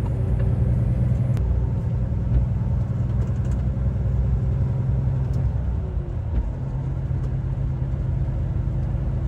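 Steady low drone of a Volvo truck's engine and tyres, heard inside the cab while cruising on a motorway, with a faint hum over it. The sound dips briefly about six seconds in, then settles back.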